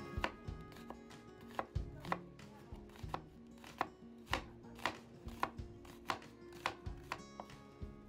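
Kitchen knife slicing through a peeled onion on a wooden cutting board. The blade knocks on the board in a steady run, about two to three strokes a second.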